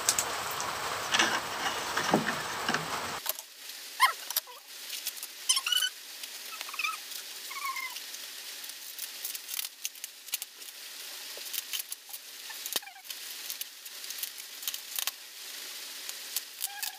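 Scattered clicks and rustles of hands handling things on a table, with a few short high chirps partway through. A steady hiss cuts off abruptly about three seconds in.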